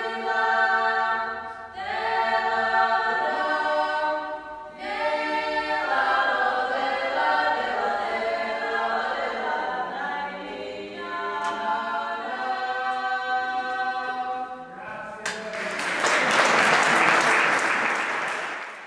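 Small women's choir singing a Georgian folk song a cappella in several voices, long held chords with short breaks between phrases. About fifteen seconds in the song ends and the audience applauds, louder than the singing.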